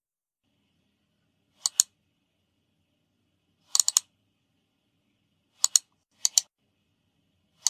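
A clicking sound effect: short, sharp, crisp clicks in quick pairs and triplets, a cluster every second or two, with silence between.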